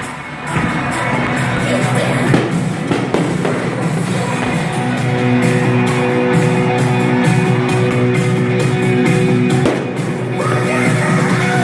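Rock music with singing, played loud and steady.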